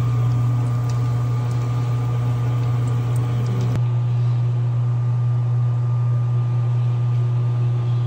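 Loud, steady low mechanical hum. Over the first half, chicken nuggets fry in oil in a saucepan, with a few faint pops.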